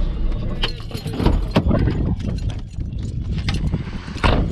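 Irregular clicks and clunks over a low rumble: a van's driver door being opened and keys jangling.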